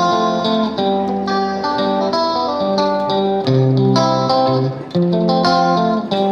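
Background music: a plucked guitar melody, with notes changing every fraction of a second.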